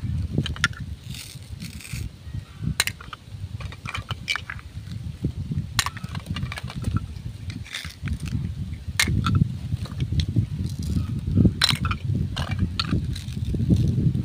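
Plastic toy fruit and vegetable pieces clicking and knocking against each other as hands pull them apart and set them down, in irregular sharp clicks over a steady low rumble.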